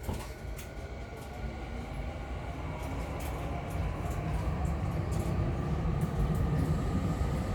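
Running sound heard inside a Tokyu 5050 series electric train car: a steady rumble of wheels and running gear with scattered clicks and a faint whine, growing steadily louder.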